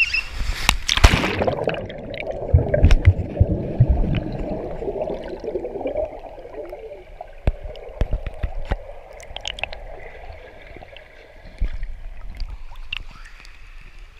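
A loud splash about a second in as a rider shoots head-first off a water slide into a pool, then muffled underwater churning and bubbling heard through a submerged action camera, slowly settling.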